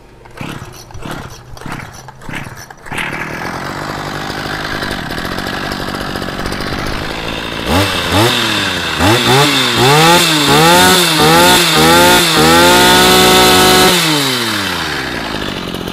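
Small two-stroke brush cutter engine started with a few pulls of its assisted recoil starter. It catches about three seconds in and idles, then from about eight seconds it is revved up and down several times, held at high revs, and drops back to idle near the end.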